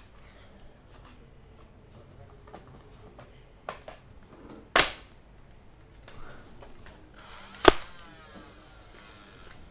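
Nerf Alpha Strike Flyte CS-10 toy blaster being opened, primed and fired: a few light plastic clicks, then two sharp loud snaps about three seconds apart, the second followed by a short rattle.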